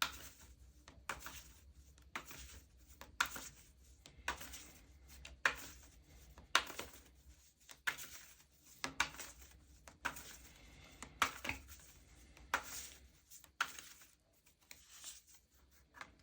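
A deck of tarot cards being shuffled and handled by hand, with a sharp card slap or flick about once a second.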